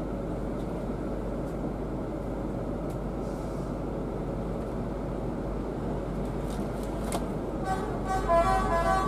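Steady rumble of the Scania K360IB coach's engine and road noise, heard from inside the cabin. Near the end comes a run of short pitched tones that change in pitch, the loudest thing here, with a sharp click just before.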